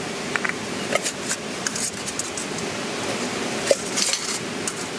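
Scattered light metallic clinks and rattles as a small camping brew kit (alcohol stove and titanium mug) is handled, over the steady rush of a waterfall.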